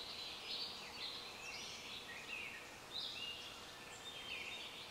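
Outdoor ambience of birds chirping: many short, overlapping calls and quick sweeping notes, several a second, over a faint background hiss.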